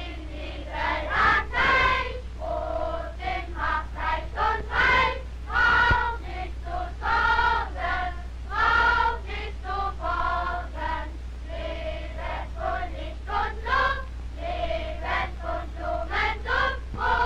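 A group of schoolchildren singing a song together as a choir, held notes changing every half second or so, over a steady low hum.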